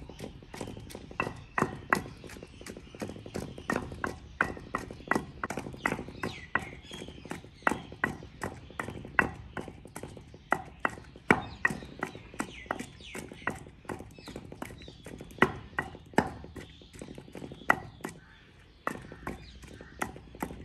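Pestle pounding ginger and green chillies into masala in a kunda, a traditional Punjabi mortar: a run of sharp knocks, about two a second, with a short pause near the end.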